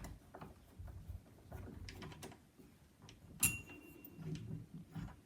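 Faint clicks and small knocks of the old door handle's mechanism being handled, its spring worn loose, with one sharper click about three and a half seconds in.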